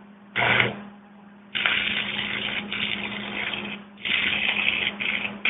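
Cutting torch hissing in bursts as the cutting jet is turned on and off: a short burst about half a second in, a longer one from about one and a half seconds, a brief break near four seconds, then it starts again. A steady low hum runs underneath.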